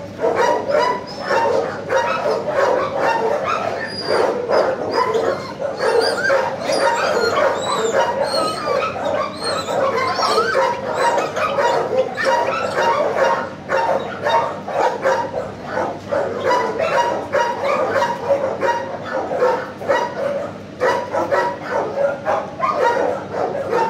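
Many dogs in shelter kennels barking without a break, the barks overlapping, with high yips and whines mixed in, thickest in the first half.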